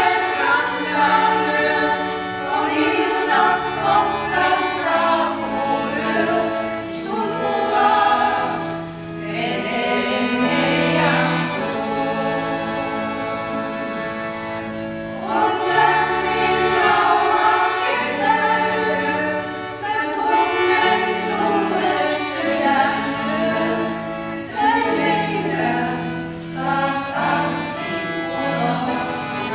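A small women's vocal group singing a song, accompanied by a piano accordion.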